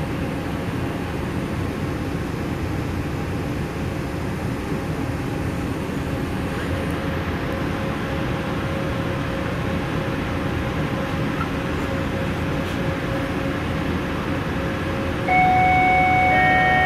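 Steady running noise inside a Detroit People Mover car on its elevated guideway. Near the end a steady tone of several notes comes in, the notes entering one after another.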